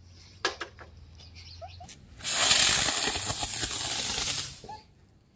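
Diwali helicopter firecracker hissing as it sprays sparks: a loud rushing hiss starts about two seconds in, lasts about two and a half seconds and then dies away. A couple of faint snaps come before it.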